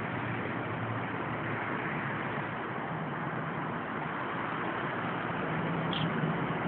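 Steady hiss of distant city traffic and urban background noise, with a short high chirp near the end.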